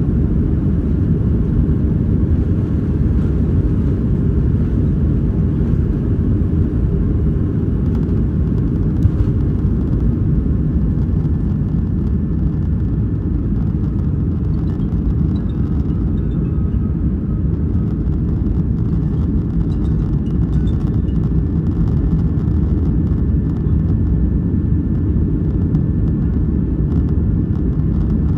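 Boeing 737-500's CFM56-3 turbofan engines at takeoff power, heard inside the cabin over the wing as a loud, steady rumble through the takeoff roll, liftoff and climb-out. One brief knock about nine seconds in.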